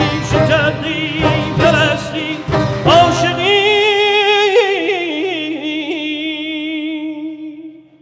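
Male Persian classical vocalist singing over instrumental accompaniment. About three seconds in the accompaniment drops away and he holds one long, wavering, ornamented note alone, which fades out near the end.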